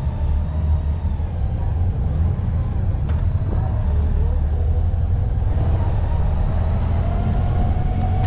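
Onboard sound of a motorcycle riding at low speed: a steady, low engine hum mixed with wind rumble.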